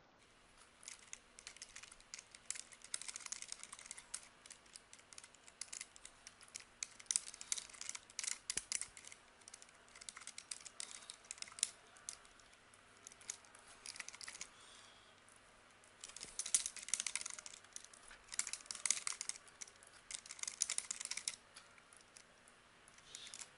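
Typing on a computer keyboard: fast runs of key clicks with short pauses between them, stopping shortly before the end.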